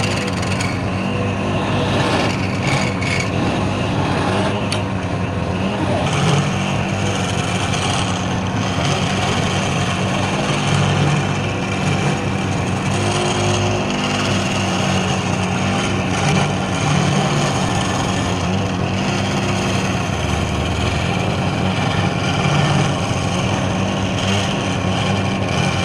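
Wood lathe running steadily, with a turning tool cutting the spinning wood.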